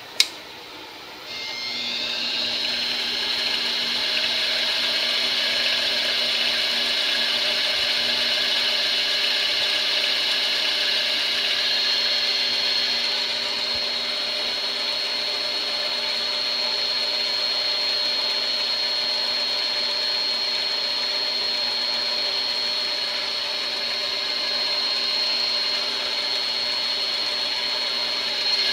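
Small CNC bench lathe: a sharp click, then about a second later the spindle motor spins up and runs steadily with a high whine.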